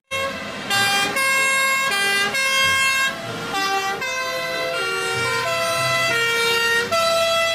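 Two-tone sirens of several fire engines sounding together, each jumping back and forth between a high and a low note, over the low rumble of the trucks' engines.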